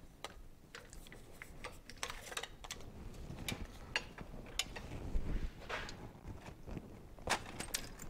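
Irregular metal clicks and clinks as a motorcycle rear shock absorber's spring and fittings are handled and fitted together in a bench vise, with a couple of low thumps about five seconds in.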